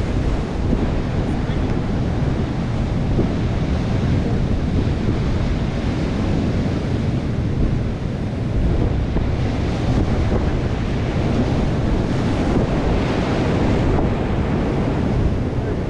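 Ocean surf breaking and washing over shoreline rocks in a steady rush, with wind rumbling on the microphone.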